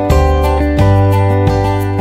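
Background music: a track led by guitar, with a steady bass beat and changing chords.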